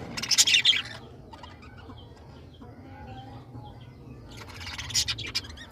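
A colony of birds calling, with two loud, harsh bursts of noise: one in the first second and another about four and a half seconds in.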